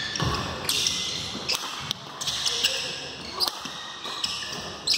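Badminton rackets striking a shuttlecock in a doubles rally, sharp hits about once a second, over the murmur of a crowd in an indoor hall.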